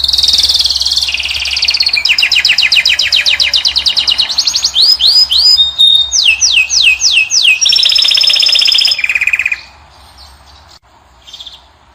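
Caged finch singing a long run of fast trills and repeated rising and falling whistled notes, stopping abruptly about nine and a half seconds in, followed by a few faint chirps.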